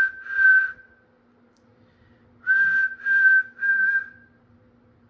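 A person whistling to emu eggs near hatching: short high-pitched notes held at one pitch, in groups of three, a call meant to get the chicks inside to stir and wiggle. One group ends about a second in, and a second group of three follows about halfway through.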